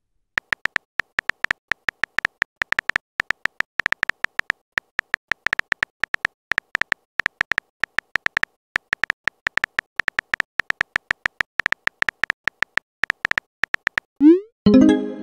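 Simulated smartphone keyboard key clicks, a rapid irregular run of short ticks as a message is typed out, with a brief pause about eight and a half seconds in. Near the end comes a short pitched message tone with a rising start.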